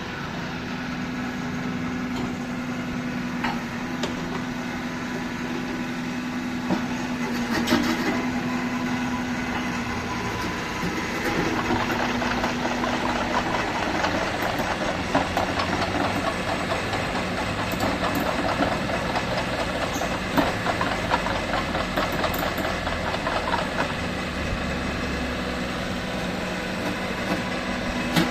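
Kubota RX-301 mini excavator's diesel engine running steadily, with a dense rattling clatter from the working machine through the middle stretch and a few sharp clanks.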